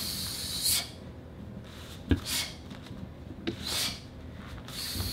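A child performing a taekwondo form on foam mats: a short hissing swish with each movement, about every second and a half, and one dull thump about two seconds in as a foot lands.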